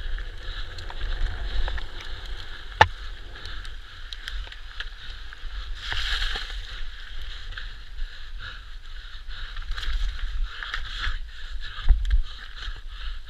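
Mountain bike riding fast downhill over a rough rocky, gravelly trail: a steady rattle and rumble of tyres on stones and a clattering frame and chain, with wind buffeting. Sharp knocks from hard impacts stand out about three seconds in and near the end.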